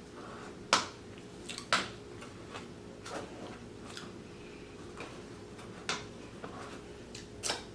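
Close-miked eating sounds: a handful of sharp mouth smacks and clicks while chewing, about five louder ones spread over several seconds with fainter ones between.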